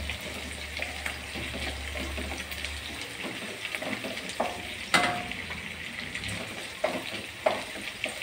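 Shallots and dried red chillies sizzling in hot oil in a non-stick kadai, stirred with a wooden spatula that scrapes through them. A few sharper knocks of the spatula against the pan come in the second half.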